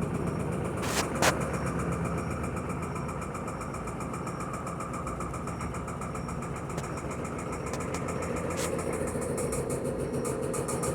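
Electrolux Perfect Wash 16 kg washing machine spinning, a steady mechanical rumble with fast rhythmic pulsing and a few sharp knocks, two about a second in and one near the end. The machine is shaking during the spin, which the owner puts down to feet he never levelled.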